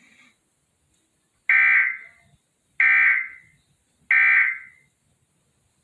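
Emergency Alert System end-of-message data bursts sounding at the close of the alert: three identical short, harsh buzzing digital tones about 1.3 seconds apart.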